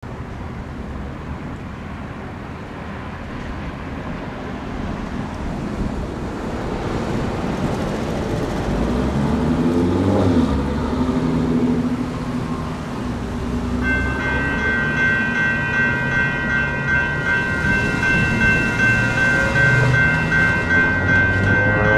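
Road traffic passing a railroad grade crossing. About 14 s in, the crossing signal's warning bell starts ringing steadily as the signals activate for an approaching train.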